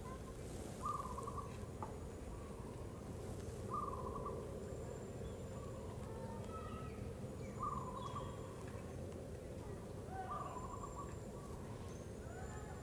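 A bird calling a short, even note, four times about three seconds apart, over steady outdoor background noise with faint high chirps.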